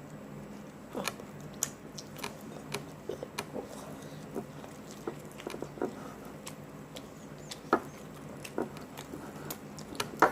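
Close-up chewing and biting of hot and spicy chicken: a string of irregular wet smacks and clicks from the mouth, with a few louder bites about a second in and near the end.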